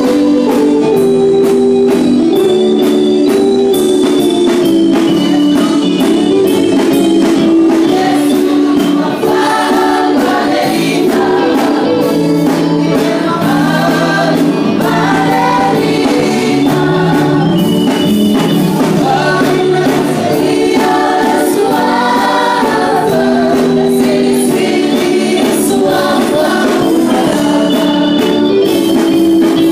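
A choir of children and adults singing a Samoan hymn, with instrumental accompaniment.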